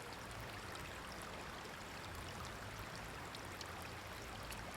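A small, newly lit kindling fire in a fire pit burning with a steady soft hiss and a few faint ticks.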